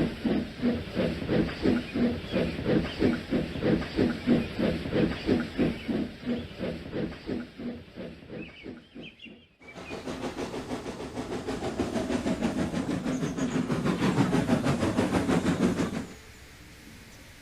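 Steam locomotive exhaust chuffing steadily, about two to three beats a second, dying away a little before the middle. After an abrupt cut, a faster, denser run of chuffing builds up and then stops suddenly near the end, leaving only faint hiss.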